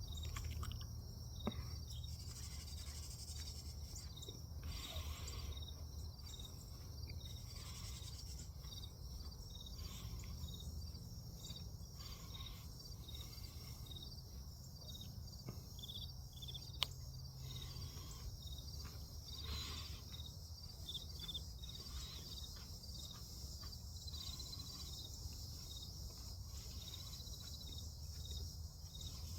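A steady chorus of crickets chirping, rapid pulsing calls layered over one another, over a low steady hum. A single sharp click sounds about seventeen seconds in.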